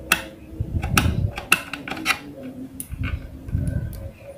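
Irregular sharp clicks, about half a dozen, with dull handling bumps, as multimeter probes are worked against the terminals of a blender's push-button switch.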